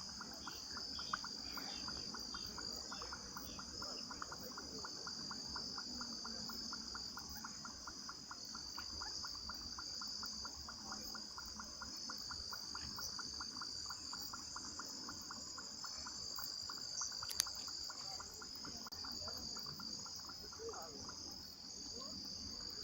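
Dusk chorus of crickets: a steady high-pitched trilling. Lower down runs a second call of rapid, evenly spaced pulses that fades out about three-quarters of the way through. There is a single sharp click at about the same point.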